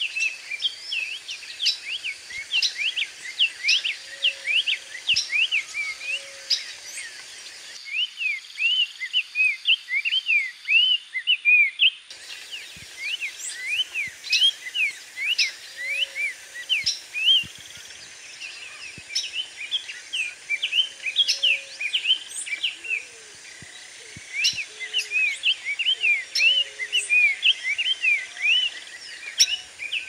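Black-faced tanager singing: a continuous run of quick, sweet, arched whistled notes, several a second, with faint lower notes now and then. The background hiss drops away for a few seconds about eight seconds in, then returns.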